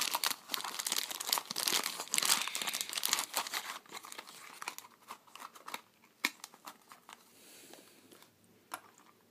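Clear plastic wrapper crinkling and rustling as it is handled. The crinkling is dense for the first three to four seconds, then thins to scattered light clicks and taps.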